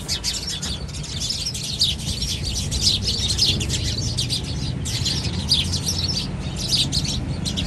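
Many small birds chirping rapidly and continuously in a dense chorus, over a steady low rumble.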